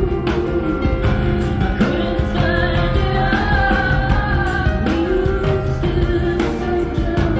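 Live rock band performance: a woman singing over a full band, with drums keeping a steady beat.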